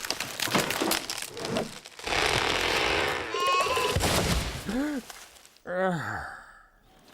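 Cartoon soundtrack effects: a quick run of clicks and knocks, then a loud burst of crashing noise, then two short vocal-like sounds that each rise and fall in pitch.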